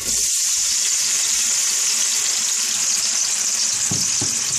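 Marinated taro root slices dropped into hot oil in a wok, sizzling loudly and steadily as they fry. Two faint knocks sound about four seconds in.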